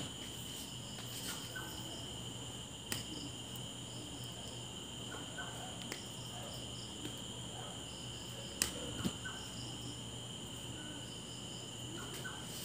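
Insects chirping in short repeated bursts of two or three, over a steady high-pitched whine and a low hum, with a few faint clicks.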